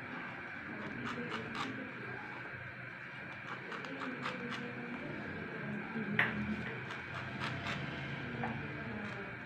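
Kitchen knife cutting slices of sandwich bread on a wooden cutting board: scattered light taps and scrapes of the blade against the board, with one sharper knock about six seconds in.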